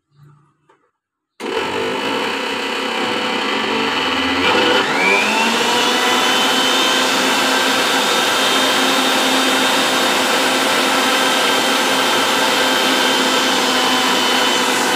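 Electric mixer grinder with a stainless steel jar churning thick cream and curd into butter. The motor starts suddenly about a second and a half in, its whine rises about four seconds in, and then it runs steadily and loudly. The mixture is too thick to turn properly without added water.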